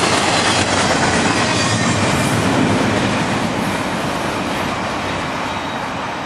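Freight cars of an intermodal train rolling past on the rails: a steady, loud rumble and rattle of wheels on track that fades gradually over the last few seconds.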